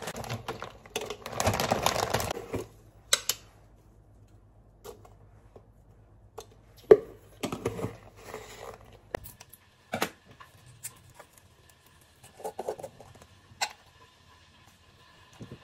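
A plastic bag of dried tea fruits crinkling and rustling as it is handled over a glass tea pitcher. After that come scattered clicks and knocks of a tea tin and a jar being opened and set down, with one sharp knock about halfway through.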